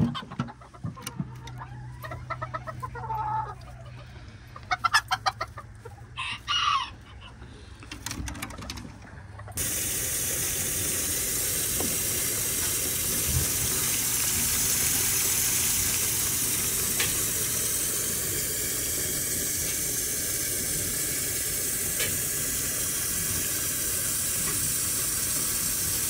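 Bantam chickens clucking, with a rooster crowing once, for the first ten seconds or so. Then a steady rush of running water starts suddenly and keeps on: the chickens' water cups being washed out.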